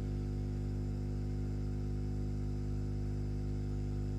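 Hot air rework station running: a steady electrical hum and buzz over a faint hiss of air.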